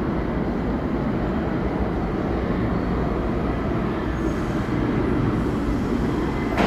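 An R62A subway train approaching through the tunnel toward the station: a steady low rumble with no clear strokes or tones.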